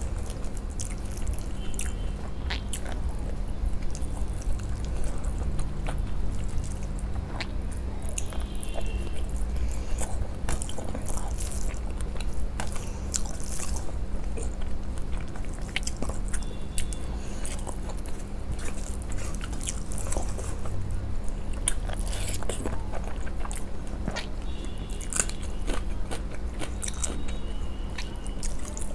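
Close-miked eating sounds: fingers mixing rice with mustard fish curry on a steel plate and mouthfuls being chewed, many short clicks through the whole stretch over a steady low hum.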